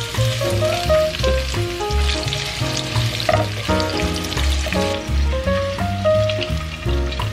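Sliced red onions sizzling in hot oil in a frying pan, stirred with a spatula, under loud background music.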